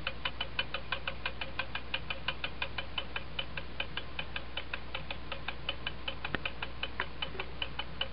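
A small weight-driven vintage German puppy wall clock ticking: its escapement gives a rapid, even tick, several ticks a second.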